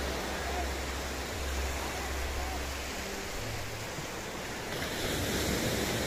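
Sea surf washing onto a sandy beach: a steady rush of waves, with a low rumble of wind on the microphone.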